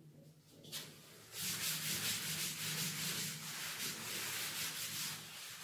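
Chalkboard being wiped clean with a duster: steady back-and-forth rubbing strokes that start about a second and a half in.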